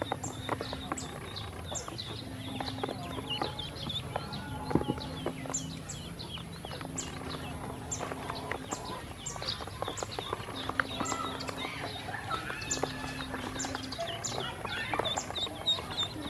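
Ducklings peeping constantly in many short, high, falling chirps, with sharp clicks of bills pecking and tapping at feed in a plastic tub. A low hum comes and goes in the background.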